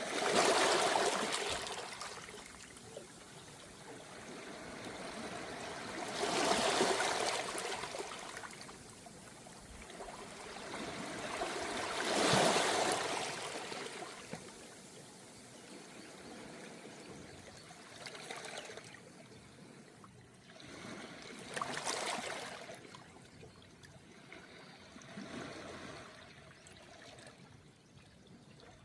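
Calm sea waves washing onto a beach of round pebbles, a gentle surge about every five to six seconds, the strongest three in the first half, with the water running back through the stones between them.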